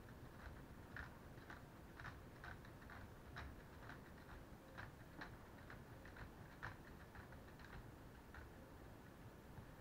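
Faint, irregular plastic clicks, roughly two a second, from a hand working the lever mechanism of a LEGO Technic Formula 1 model.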